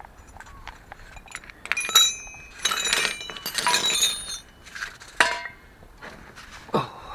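Metal tools and parts clinking and clattering against each other, each knock leaving a short metallic ring. A few light clinks come first, then a dense clatter about two to four seconds in, and one sharp clink after five seconds.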